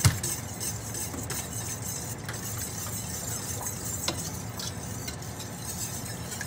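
Wire whisk stirring grape juice and pectin in a stainless steel stockpot, with a sharp clink against the pot right at the start and a few light clinks later. A steady low hum runs underneath.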